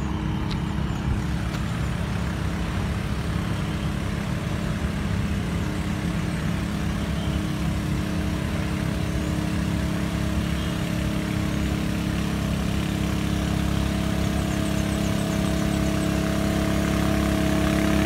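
Steady motor-vehicle engine hum over a low traffic rumble, growing a little louder over the last few seconds.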